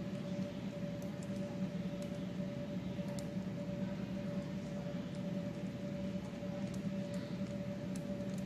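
Steady machine hum holding one even pitch, with a few faint light clicks from wire connectors being handled and pushed onto the terminals of a power switch.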